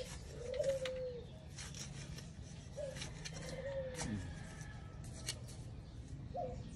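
A dove cooing three times, each a short note followed by a longer, slightly falling one, about three seconds apart. Faint clicks and scrapes from a small hand tool digging into the soil come in between.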